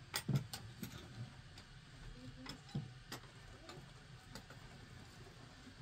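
A scattering of light, sharp clicks and knocks, several in quick succession in the first second and a few more spread out between about two and four and a half seconds in.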